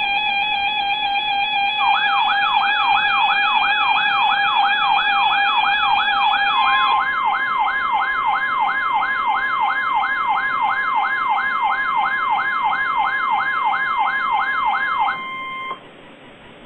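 Weather-radio emergency alert tones: a steady electronic alarm tone with a fast warbling siren-like alert, about two and a half sweeps a second, laid over it from about two seconds in. Partway through, the steady tone shifts to a slightly higher pitch. Everything cuts off abruptly near the end, leaving faint radio hiss.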